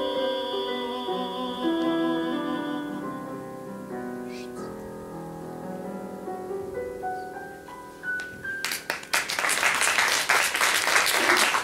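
Closing bars of a Russian romance: a male singer holds the last note with vibrato over piano for about three seconds, then the piano plays on alone and dies away. Audience applause breaks out near the end.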